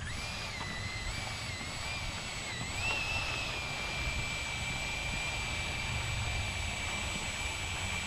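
High whine of a small electric RC aircraft's motors. The pitch wavers up and down, rises about three seconds in, then holds steady.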